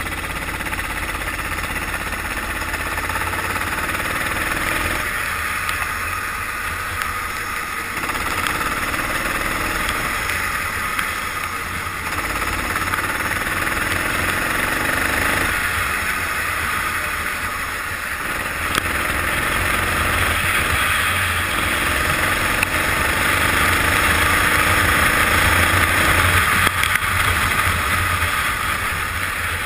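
Go-kart engine heard from onboard on a wet track, its note rising repeatedly as it accelerates out of corners and falling as it lifts off. A steady rushing hiss of wind and water spray runs underneath.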